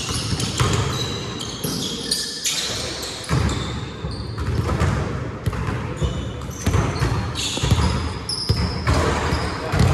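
A basketball bouncing on a hardwood gym floor during play, with sneakers squeaking in short chirps and the thud of players running.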